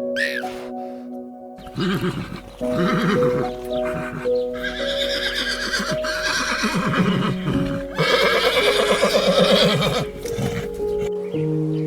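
Background music with held notes, with animal calls over it from about a second and a half in until near the end, loudest around two-thirds of the way through.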